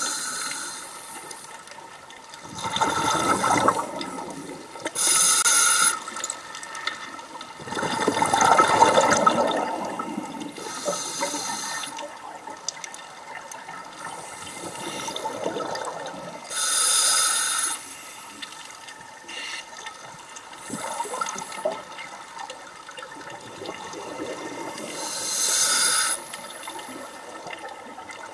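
Scuba regulator breathing underwater: a short hiss as air is drawn through the demand valve, then a longer rush of bubbling exhaust on the out-breath, about one breath every five or six seconds.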